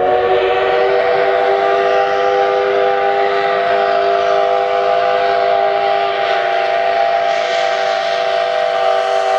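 Steam locomotive whistle blown in one long, steady blast that sounds several notes at once, cut off suddenly at the end.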